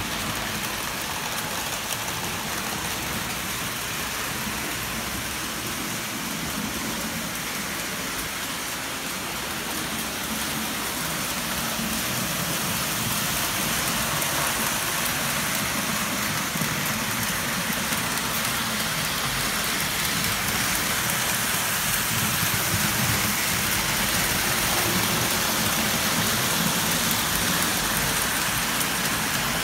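Model train running on three-rail O-gauge track: a steady rumbling whir of wheels and motor, growing louder after about ten seconds.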